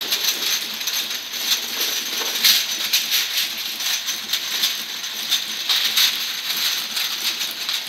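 Automatic horizontal labeling machine running, with a steady, rapid clatter of small capped tubes rattling against each other and the metal guides as they feed from the hopper through the star wheel onto the roller conveyor.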